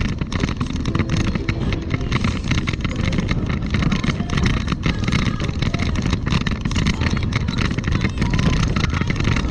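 Steady rumbling and rattling riding noise as the camera rolls along a paved path: wheels on the rough surface and wind on the microphone.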